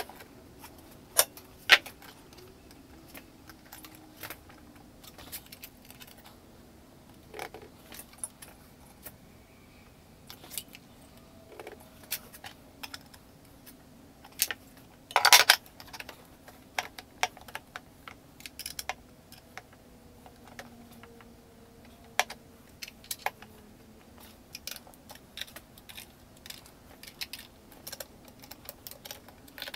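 Scattered metallic clicks, taps and small rattles of a CNC 3018 Pro's frame being hand-adjusted: the aluminium bed slid on its steel guide rods and an Allen key worked on its bolts. The loudest rattle comes about fifteen seconds in, and the clicking grows quicker near the end.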